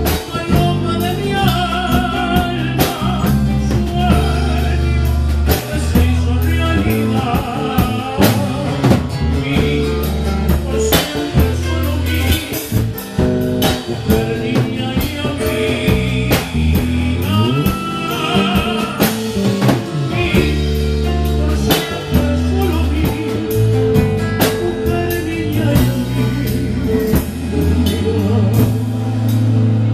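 Live band playing a song: electronic keyboard with drums, a bass line and a singing voice.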